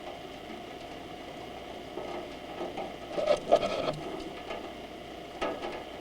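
Rain pattering steadily, with a short run of louder, sharper taps a little past halfway.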